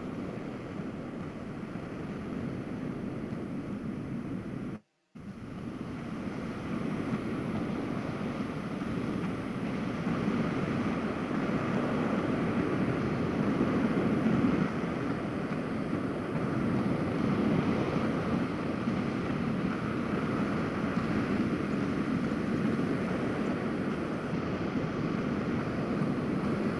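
Steady rushing noise with no tones in it, growing slowly louder, with a brief cut to silence about five seconds in.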